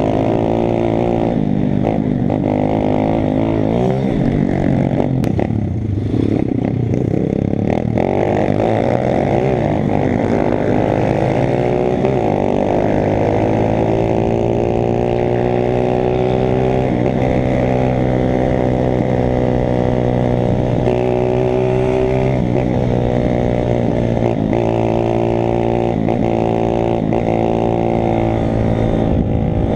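Small single-cylinder four-stroke pit bike engine running hard under the rider, its pitch climbing and dropping again and again as it revs through the gears and backs off the throttle.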